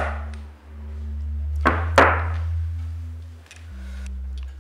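Domino tiles slapped down hard on a table: three sharp wooden knocks, one right at the start and two close together about two seconds in, the second the loudest. Under them runs a low droning music bed that shifts pitch in steps.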